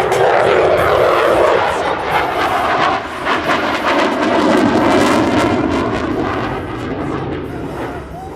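F-22 Raptor jet fighter's twin turbofans roaring on a low pass overhead, with the sweeping, phasing tone of a jet flyby; the roar fades from about six seconds in as the jet moves away.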